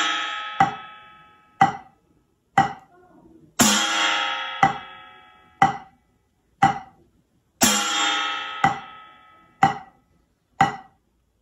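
Drumsticks keeping a slow, steady beat of about one stroke a second. Every fourth beat falls on an upturned steel plate, which rings loud and sustained like an accented note, while the beats in between are short, dry taps on a rubber practice pad.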